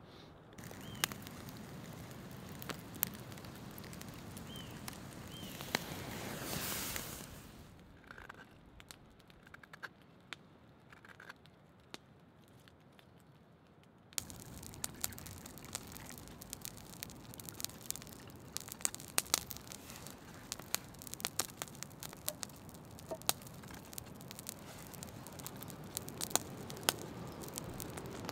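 Knife blade cutting and scraping a wooden spoon by hand: small clicks and shaving sounds, sparse at first, then denser and louder from about halfway, when a hooked knife works inside the bowl. A couple of faint bird chirps come in the first seconds.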